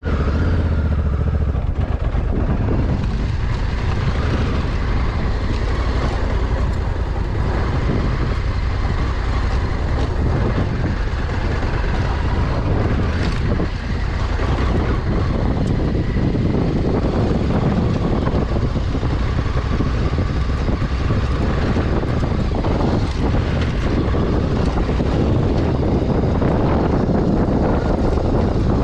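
Honda Africa Twin 1100's parallel-twin engine running steadily while riding over a rough dirt track, with wind buffeting the microphone.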